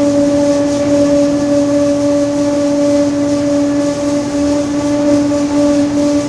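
Differential of a Mercedes-Benz OF-1721 BlueTec 5 bus droning very loudly: a steady whine holding one pitch over the road and running noise.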